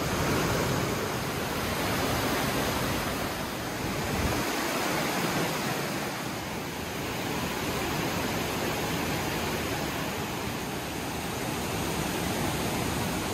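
Waterfall: a steady rush of falling water that swells and eases slightly in level.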